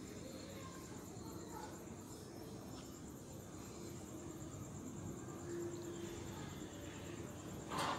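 Faint background sound: a cricket chirping steadily in a high, evenly pulsed trill over low room noise, with a brief louder noise near the end.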